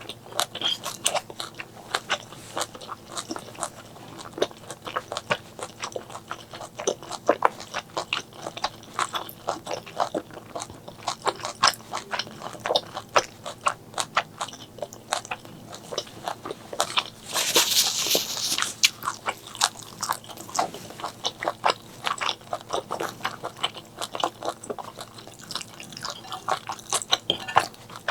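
Close-miked mukbang eating of spicy duck intestine curry and stir-fried morning glory: wet, crunchy chewing and biting, with irregular clicks several times a second. About two-thirds of the way through there is a brief hissing rush lasting over a second.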